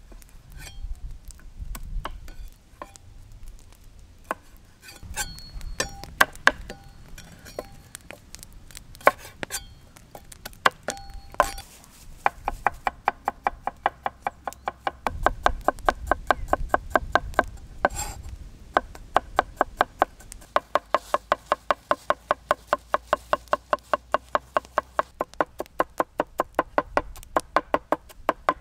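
Large kitchen knife chopping on a wooden cutting board: first scattered, irregular taps and clicks, then, about twelve seconds in, fast even chopping at about five strokes a second, mincing garlic and parsley.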